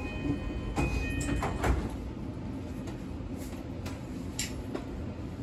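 Passenger doors of a JR Kyushu 821 series train closing: a two-tone door chime sounds in the first second, then the sliding doors shut with a thump about 1.7 s in. Steady low hum of the stopped train follows.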